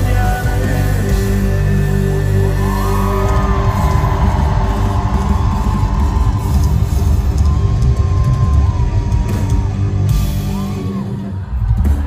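Live rock band playing loudly on electric bass and drums, with yells and whoops from the crowd over the music. The song stops with a last loud hit near the end.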